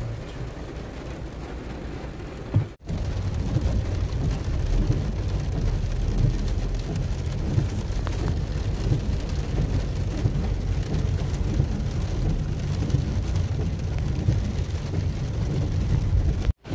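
Rain falling on a car's roof and windscreen, heard from inside the cabin over a low rumble from the slow-moving car. The sound drops out briefly about three seconds in and comes back louder.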